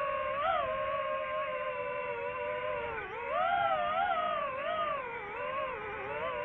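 DJI FPV drone's motors and propellers whining, the pitch wavering up and down with throttle, louder and higher about three seconds in.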